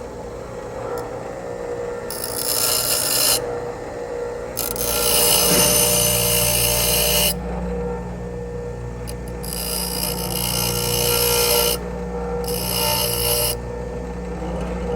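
Bench grinder running with a steady hum. A drill bit's tip is pressed against the grinding wheel in four separate bouts of hissing grinding, each lasting one to three seconds. The grinding flattens the bit's cutting lip, taking off its rake so it will scrape rather than grab in acrylic.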